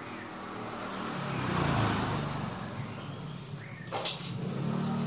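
A motor vehicle passing on the street, growing louder to a peak about two seconds in and then fading away. A sharp click about four seconds in.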